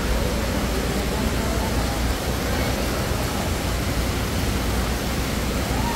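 Steady rush of splashing water from an indoor fountain's jets, with faint voices in the background.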